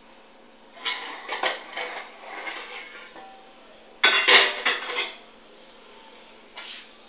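Metal cookware clattering in several bursts of clinks and knocks. The loudest bunch comes about four seconds in, as the metal kadai on the gas burner is handled.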